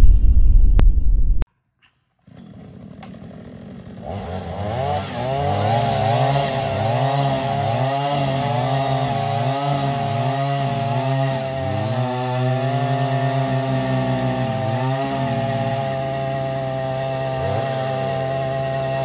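A loud sound ends abruptly, then a short silence. A Takyo petrol earth auger's small two-stroke engine comes up. Its pitch rises and falls about once a second for several seconds, then holds mostly steady at speed.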